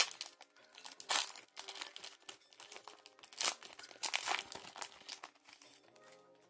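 Plastic foil wrapper of a Pokémon booster pack crinkling and tearing as it is opened, in a few bursts of rustling about a second in and again around three and a half to five seconds in.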